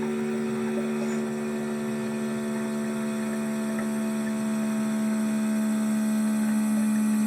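Single-serve pod coffee maker brewing, its pump running with a steady hum that grows slightly louder over the last few seconds.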